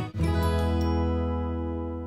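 Background music ending on a single chord, struck just after the start and left ringing as it slowly fades.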